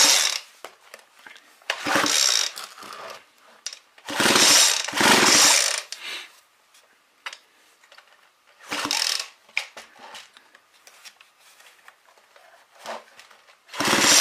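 McCulloch Eager Beaver two-stroke chainsaw's recoil starter pulled about six times, some pulls in quick pairs, each pull spinning the engine over freely with a fast rattle. The spark plug is out, so the engine cannot start; it is being cranked for a spark test.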